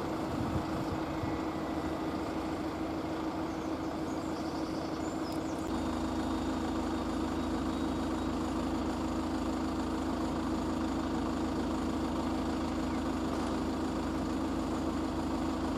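Engine idling steadily, with a deeper rumble that comes in about six seconds in and then holds.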